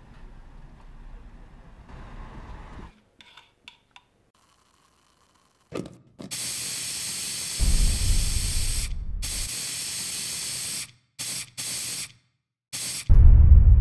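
Compressed-air paint spray gun hissing. A steady spray starts about six seconds in and lasts about five seconds, with a low rumble under it for a couple of seconds. Three short bursts follow near the end.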